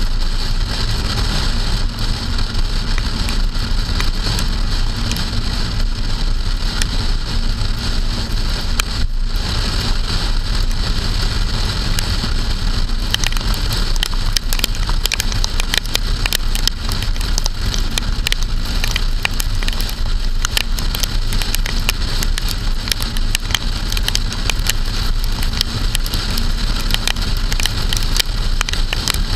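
Steady rush of wind and road noise from a car driving on a wet road, heard from a camera mounted on its trunk, with raindrops ticking against the camera housing. The ticks grow more frequent from about halfway through.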